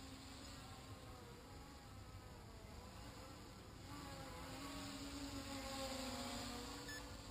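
Small quadcopter's propellers buzzing faintly overhead, the pitch wavering up and down as the throttle changes, growing louder about five seconds in as it comes closer.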